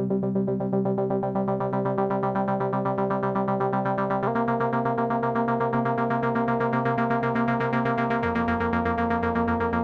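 Novation Summit synthesizer playing held chords with a fast, even pulsing in its level. The chord changes about four seconds in and again about eight seconds in, moving the bass lower the second time.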